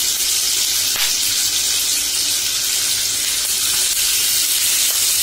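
Marinated mutton chops sizzling in hot oil in a frying pan over a medium flame: a steady, high hiss.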